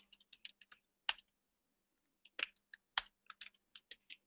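Faint, irregular typing on a computer keyboard: scattered key clicks in two runs, with a pause of about a second between them.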